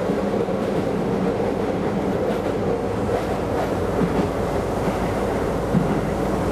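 Keisei Line electric train running at speed, heard from on board: a steady rumble of wheels on rail with a constant hum, and a few faint wheel knocks.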